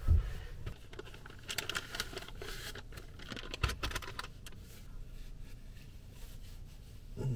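Clothing rustling and a tissue packet crinkling as a tissue is pulled out and used, in a small enclosed space. There is a soft thump at the start and another about three and a half seconds in.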